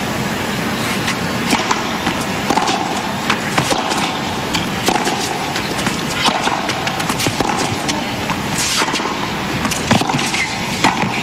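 Tennis rally on a hard court: rackets strike the ball back and forth in sharp hits every second or two, over a steady crowd hum.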